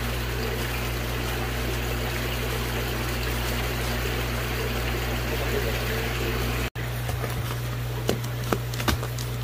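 Water trickling and running into a plastic shipping bag from a hose, over a steady low pump hum; it cuts off abruptly about two-thirds through, followed by a few short knocks.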